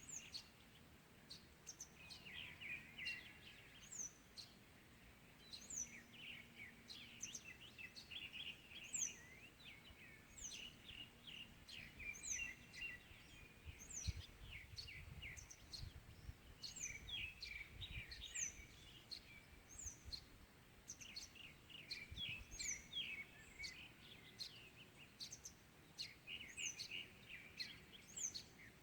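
Several wild birds singing faintly in a morning chorus: a high, sharply falling note repeats about once a second over busy, chattering twitters from other birds.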